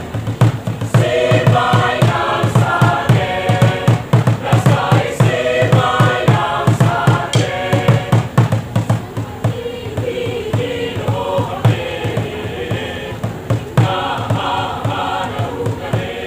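Mixed choir singing a song in parts over a steady low beat from the accompaniment.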